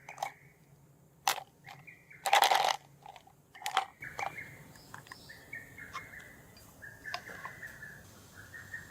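A few sharp clicks and knocks, with one louder rattling clatter about two and a half seconds in. These are followed by a string of short, repeated bird chirps.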